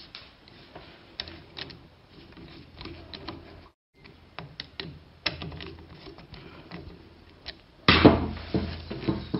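A screwdriver tightening the screw on an adjustable SUP paddle's shaft clamp lever: scattered small clicks and scrapes of metal on plastic, with a louder burst of rubbing and knocking near the end.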